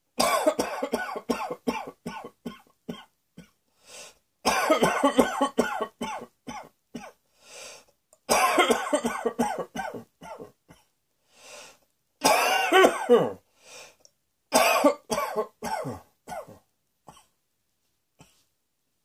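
A person coughing in repeated fits: about five bouts of quick coughs in a row, each trailing off into smaller coughs, with short pauses between bouts.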